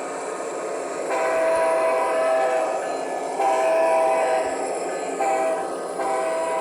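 HO scale model locomotive's sound decoder playing a horn through its small onboard speaker over the running engine sound: two long blasts, a short one and a final long one, the grade-crossing signal.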